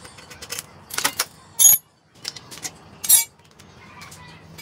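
Sharp metallic clinks of tools and exhaust parts as the motorcycle's stock exhaust pipe is taken off. There are a few light knocks, then two loud ringing clinks about a second and a half apart, near the middle of the stretch.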